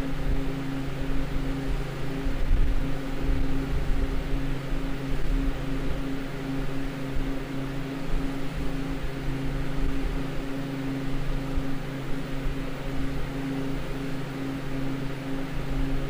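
Walk-in freezer's Bohn evaporator unit running: a steady fan hum with rushing air, over an uneven low rumble.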